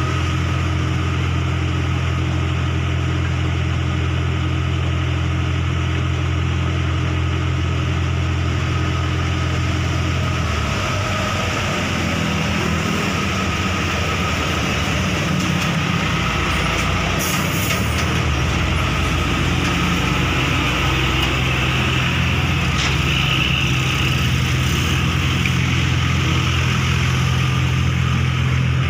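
A vehicle engine idling close by, a steady low hum. About ten seconds in, a passing vehicle on the road covers it with a rougher engine and tyre sound for several seconds, and then the steady idle comes back.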